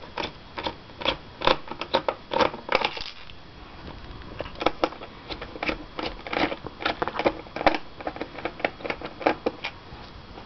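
Irregular clicking and ticking of a screwdriver turning small screws out of a laptop's plastic screen housing, with a short pause about three seconds in.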